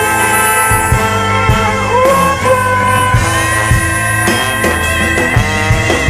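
A band playing an instrumental break: a lead line of sustained notes that bend in pitch over a steady beat of drums.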